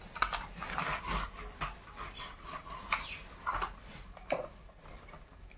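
Plastic take-apart toy tractor parts being handled and pressed together by hand: irregular small clicks and knocks with rubbing scrapes between them.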